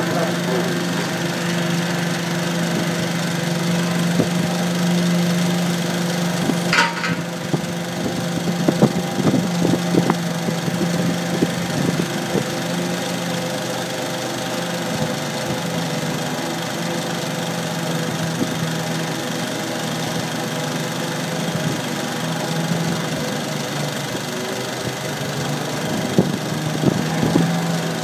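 An engine running steadily at an even low pitch, with scattered knocks and clatter about nine to ten seconds in and again near the end, and a brief high squeal about seven seconds in.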